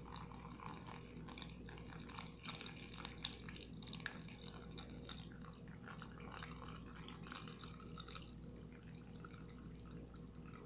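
A thin stream of water pouring from a plastic cup into a plastic tub of cornstarch: a faint, uneven trickling and splashing.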